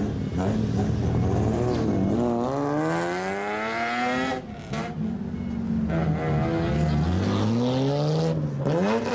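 Car with a straight-pipe exhaust revving as it pulls away. The engine note climbs steadily for about two seconds and cuts off sharply about four seconds in, then sags and rises again through another long rev toward the end.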